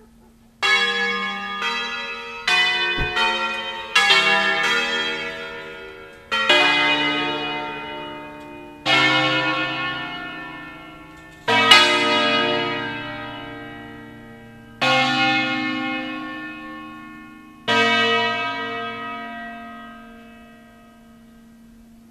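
Church bells of an eight-bell B-flat peal, cast by Pruneri in 1909 with three recast by Ottolina in 1948, rung in the Bergamasque allegrezze/concerto style. Each bell sounds once and rings on, fading. A quick run of about six strokes comes in the first four seconds, then single strokes follow roughly every three seconds.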